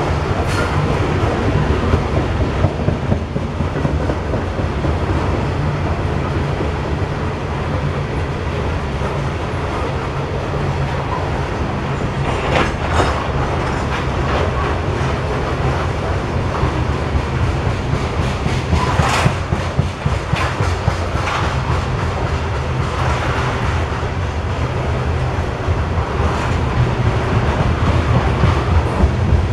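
Coal hopper cars of a freight train rolling past: a steady, loud rumble of steel wheels on rail with rhythmic clickety-clack over the rail joints. Twice, a little under halfway and about two-thirds through, a brief sharper metallic noise from the wheels rises above the rumble.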